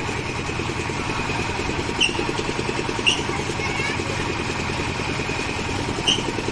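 A small engine runs steadily with a fast putter. Over it come short high squeaks, which fit the swinging boat ride's frame: one about two seconds in, another a second later, and another near the end.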